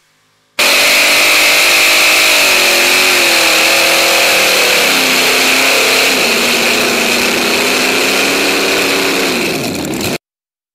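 Supercharged Hemi V8 engines of a multi-engine pulling tractor running at full throttle during a pull, with a steady high whine over them. The engine pitch sinks gradually through the run as the sled loads them down. The sound starts abruptly about half a second in and cuts off suddenly near the end.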